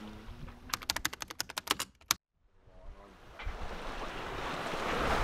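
A quick run of about a dozen sharp clicks like keyboard typing, cut off by a moment of dead silence. Then the rushing of wind and water past a sailboat under way builds up.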